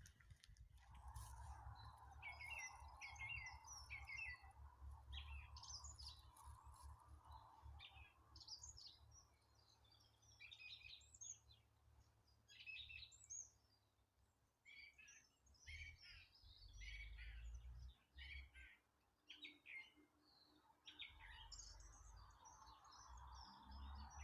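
Songbirds singing faintly in short chirping phrases, one after another and overlapping, over a low steady rumble.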